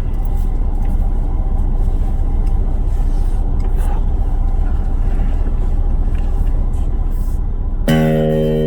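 Blackstar ID Core V3 practice amp on its crunch setting with a guitar plugged in, giving a steady low hum and buzz. Near the end an electric guitar chord is strummed through it and rings on.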